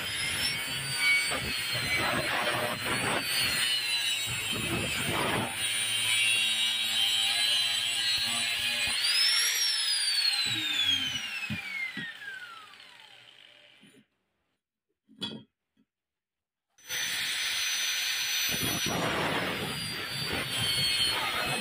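Angle grinder cutting through a worn-out steel ceramic-cutting blade: a high whine over rasping grinding. About nine seconds in it is switched off and its whine falls steadily as the disc spins down, then after a few seconds of silence it starts again and cuts once more near the end.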